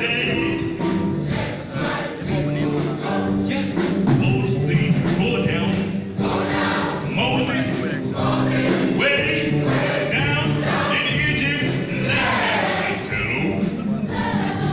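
Choir singing a gospel spiritual, holding sustained chords that shift in pitch, performed live.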